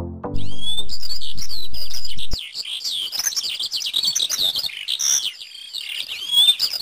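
Many small birds chirping and twittering at once, a busy chorus of overlapping high calls. Under it a low held musical tone sounds for the first couple of seconds and cuts off suddenly.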